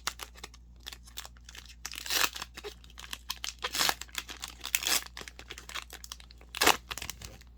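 Plastic cellophane wrapper of a trading card cello pack being torn and crinkled open, in irregular rustling strokes with a sharper crackle near the end.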